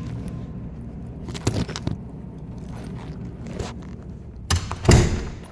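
Handling noise: a few sharp knocks and clicks, then a louder scraping rustle about five seconds in.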